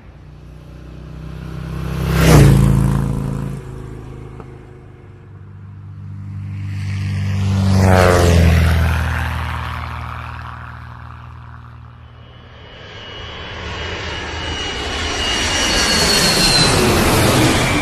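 Engine-powered vehicles passing close by, one after another, each rising to a peak and then dropping in pitch as it goes past: a quick loud pass about two seconds in, and a second pass with a falling engine note around the middle. Near the end a hissing, whining engine sound builds up and grows louder.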